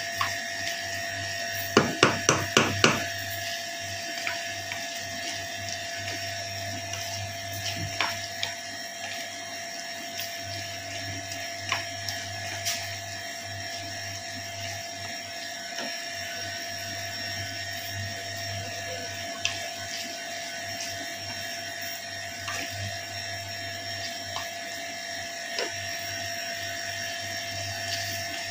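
A wooden spatula stirring chicken in a nonstick frying pan: five sharp knocks against the pan about two seconds in, then scattered light clicks and scrapes. A steady machine hum runs underneath.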